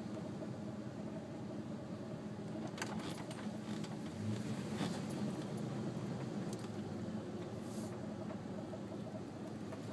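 Steady hum of a vehicle driving, with a few faint clicks.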